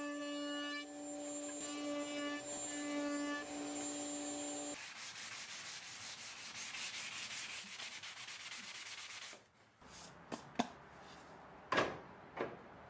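A table-mounted router runs with a steady whine as a walnut board is fed past the bit to chamfer its edges. About five seconds in it gives way to hand sanding, a fast rhythmic rasp of abrasive on wood. Near the end a few sharp knocks sound as the wooden shelf is set onto metal brackets on a steel pegboard.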